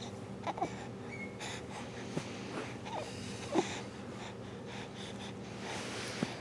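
A baby breathing, with a few short, soft vocal sounds, the loudest about three and a half seconds in, over a steady low hum.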